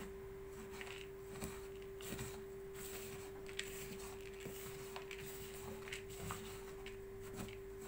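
A spoon stirring a dry mix of ground walnuts, almonds and icing sugar in a plastic bowl: soft scraping with scattered light clicks, over a steady faint hum.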